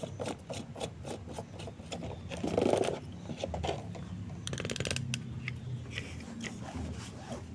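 Hands handling a new spin-on diesel fuel filter and fitting its rubber seal: light clicks, taps and rubbing, with a louder dull knock about two and a half seconds in and a brief burst of rapid scratchy clicks about four and a half seconds in.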